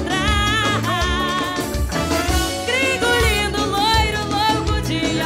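Upbeat dance music with a pulsing bass beat and a melodic lead line.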